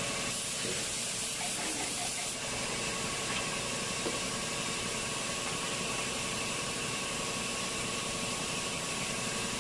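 Air compressor running steadily: a constant hiss with a faint steady hum.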